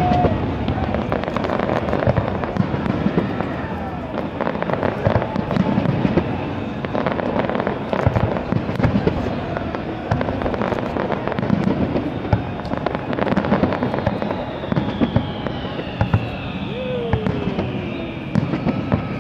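Aerial fireworks shells bursting in a continuous barrage: dense, overlapping bangs and crackle over a steady rumble, with no break.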